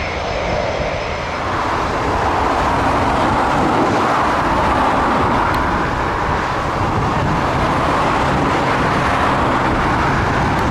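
Jet airliner engines heard from beside the runway: a loud, steady rushing noise with a low rumble underneath, swelling slightly about two seconds in.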